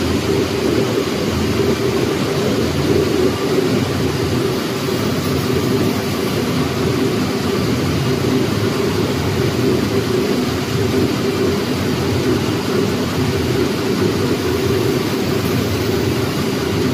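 Crescent former tissue paper machine running at production speed, about 1150 m/min: a loud, steady, deep rumble with a hiss above it, without breaks or changes.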